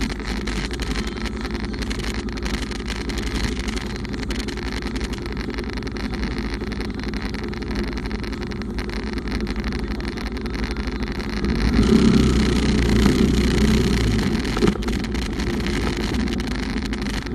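Bumoto Regnum motorcycle being ridden: a steady engine hum with riding noise, swelling louder for a couple of seconds about two-thirds of the way in.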